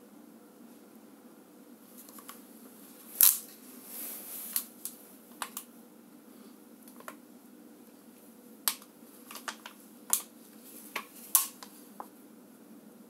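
A dozen or so short, sharp clicks and light taps at irregular intervals, the loudest about three seconds in, over a faint steady low hum.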